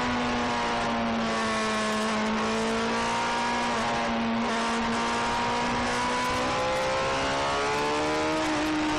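Suzuki GSX-R sportbike's inline-four engine running under way, heard from a camera on the fuel tank, over a steady hiss of wind and road noise. The engine note dips slightly, holds, then rises in pitch over the last couple of seconds.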